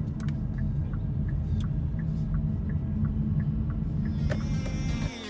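Low, steady tyre and road rumble inside the cabin of a Hyundai Kona Electric, with no engine note, and a regular light ticking of the turn signal over it. Music fades in about four seconds in, and the road noise cuts off shortly before the end.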